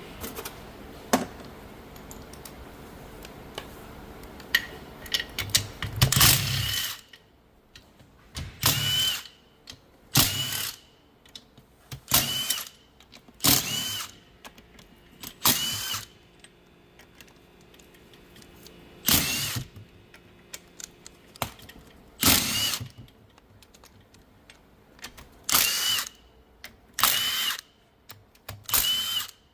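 Power tool driving a socket on the 12 mm transmission case bolts, running in about eleven short bursts from about six seconds in, each with a brief whine as it spins up and stops.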